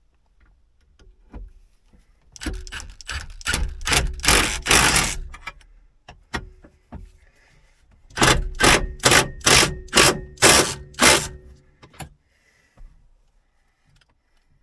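Cordless impact driver running fasteners in: two bursts of rapid hammering over a motor whine, the first about two seconds in and the second, longer one about eight seconds in.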